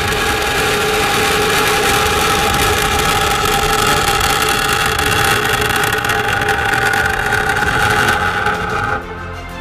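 Ballistic missile launching from its silo: a loud, continuous rushing rocket noise as the motor burns and the exhaust cloud billows, cutting off sharply about nine seconds in. Music runs underneath.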